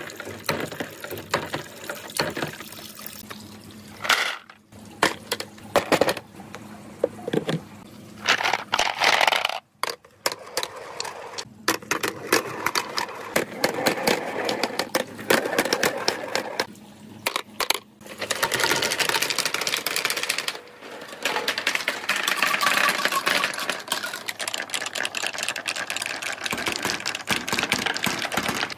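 Billiard balls and Dragon Ball replica balls rolling and clacking down a wet wooden marble run, knocking against each other and the rails, with running water and splashes as they drop into a tub. A dense, fast clatter that breaks off and restarts several times.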